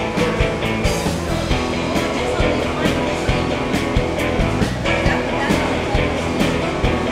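Rock-and-blues band music with a steady drum beat.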